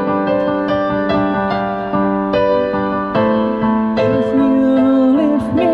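Keyboard playing a slow passage of held chords and single struck notes.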